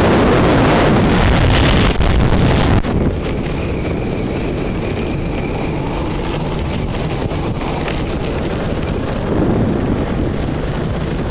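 Storm-force wind buffeting the microphone, with rough water rushing past a yacht's bow. The wind is heaviest for the first three seconds, then drops suddenly to a steady rush. A faint high whistle runs on from about four seconds in.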